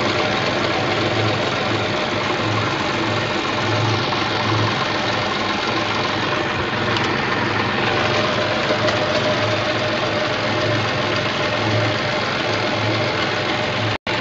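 Toyota 4-ton forklift engine idling steadily, with a low throb repeating a little more than once a second. The sound cuts out for an instant near the end.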